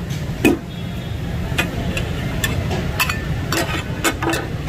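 Two flat steel spatulas clanking against each other and the iron griddle in the takatak rhythm, about seven irregular strikes, over the steady sizzle of meat, tomatoes and garlic steaming on the hot plate.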